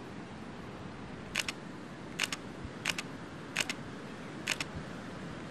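Camera shutter firing five times at uneven intervals, each shot a quick double click.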